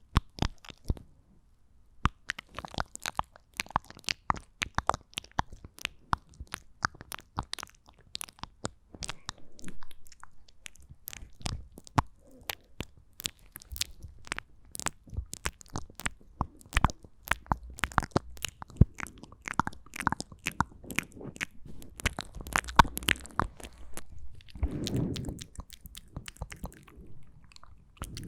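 Close-miked ASMR mouth sounds: a rapid, uneven run of wet clicks and smacks from the tongue and lips, with a brief pause about a second in.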